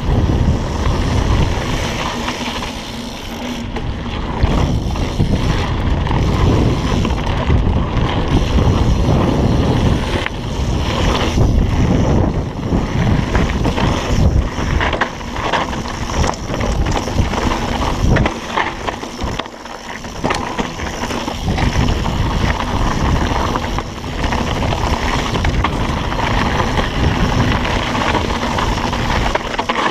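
Wind rushing over the camera microphone on a fast mountain-bike descent, with the tyres rolling over the dirt trail and the bike rattling and knocking over bumps.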